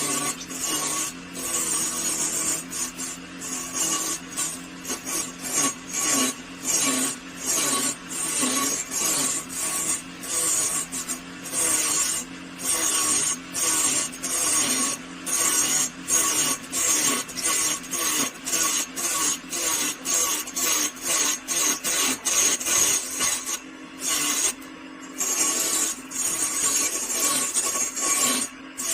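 A hand tool being worked over wood in repeated rasping strokes, about one to two a second, steady and rhythmic throughout.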